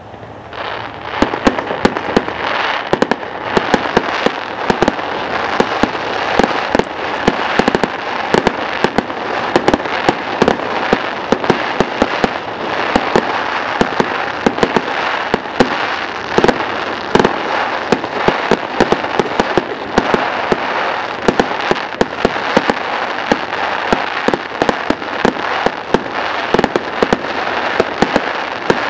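Fireworks going off in a dense, continuous barrage: many sharp bangs over steady crackling, building up about a second in.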